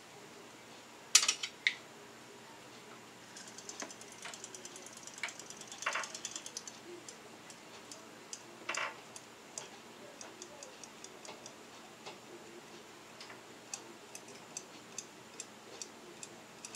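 Battery-powered Zuru Robo Alive robotic fish toy swimming in an aquarium, its tail motor ticking rapidly and evenly for a few seconds, with scattered clicks around it. A couple of sharp, louder taps come about a second in.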